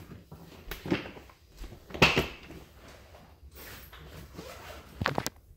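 Scattered knocks and rustling, the loudest knock about two seconds in, with a few sharp clicks near the end.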